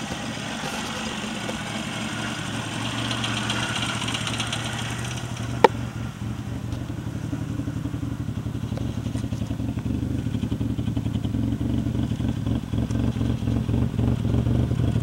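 Bored and stroked Suzuki G10 1-litre three-cylinder with a high-lift cam idling with a lumpy, loping idle. Its exhaust note grows louder and more pulsing as it is heard closer to the tailpipe. A single sharp click comes about five and a half seconds in.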